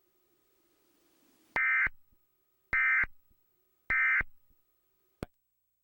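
Three short Emergency Alert System SAME data bursts, buzzy electronic tones about a third of a second each and about a second apart: the end-of-message code that closes an EAS alert. A single click follows near the end.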